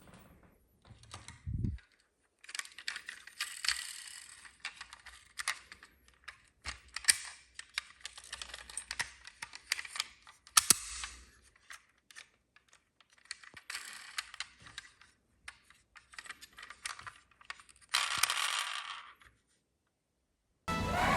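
Plastic toy cars being handled on a hard surface: scattered clicks and light rattling, with a denser rattle lasting about a second near the end.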